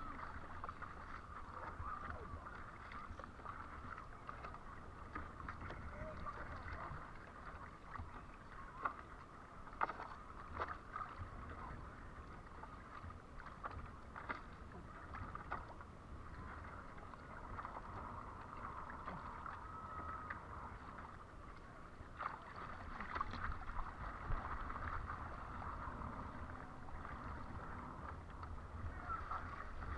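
Windsurf board moving over water: a steady rush of water and wind with scattered short splashes and slaps.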